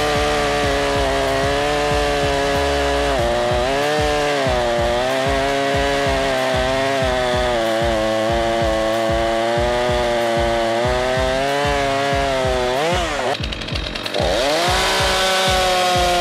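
Husqvarna 440 two-stroke chainsaw running at full throttle while cutting through a log, its engine pitch wavering up and down as the chain takes load. About thirteen seconds in, the sound breaks off and a second saw, a Stihl MS231, runs at high revs.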